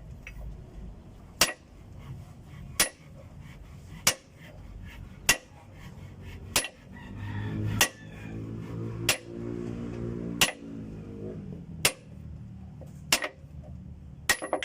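Hammer blows on a wooden block, driving a cylinder liner into an Isuzu 4BC2 diesel engine block: about eleven even strikes a little over a second apart. A low hum swells and fades in the middle.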